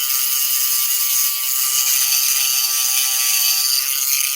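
High-speed rotary carving tool running with its bit grinding on an eggshell, smoothing the frayed edges of the carved openings. A steady whine with a high grinding hiss over it.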